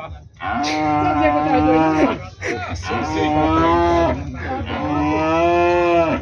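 Cattle mooing: three long moos one after another, each lasting a second or two.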